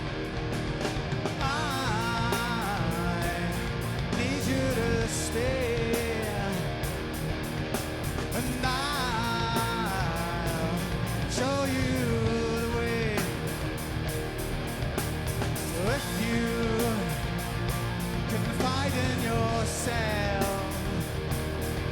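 Live rock band playing a song: drums with a steady cymbal beat, bass and electric guitars, with a melody line sliding in pitch over them.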